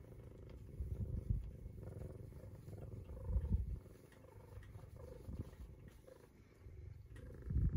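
Domestic cat purring while being stroked, a low rumble that swells about every two seconds with its breathing.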